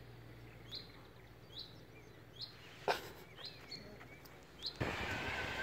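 A bird repeating one short, sharp call about once a second, faint against quiet outdoor background. There is a single click about three seconds in, and near the end a steady outdoor background hiss comes up.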